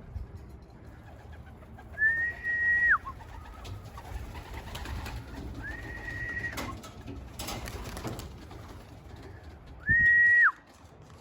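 Three loud whistled notes, each a steady high pitch held for about a second and dropping off sharply at the end, a fancier calling racing pigeons in to the loft. Pigeons cooing underneath.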